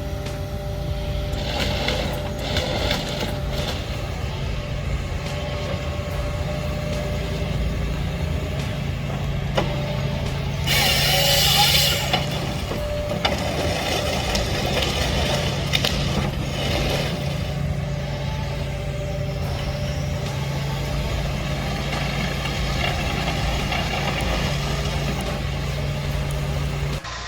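Heavy machine's engine running steadily, with a short loud hiss about eleven seconds in and occasional clanks.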